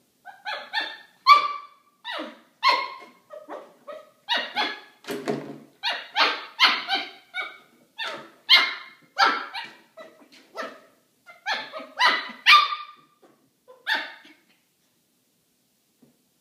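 Maltipoo puppy barking in a long run of short, high-pitched yaps, roughly two a second. It is barking at a plastic milk jug that it does not like.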